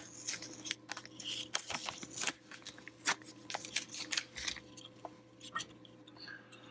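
Irregular sharp clicks and light taps of small parts and hand tools being handled on a workbench, over a faint steady electrical hum.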